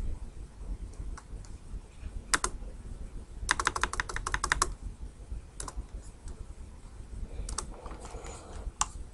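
Clicks of a computer mouse and keyboard at the desk: a few separate sharp clicks, and a quick run of about ten clicks near the middle, over a low background hum.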